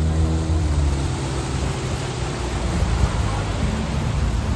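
A vehicle engine's low hum that slowly drops in pitch and fades over the first couple of seconds, over a steady rush of traffic and wind noise.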